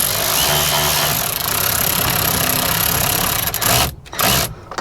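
Cordless drill/driver running in a screw, one steady run of about three and a half seconds that stops sharply, then a short second pull of the trigger.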